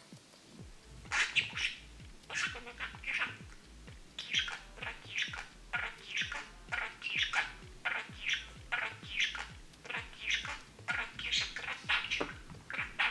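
Budgerigar chattering: a steady run of short, high chirps and warbles, two or three a second.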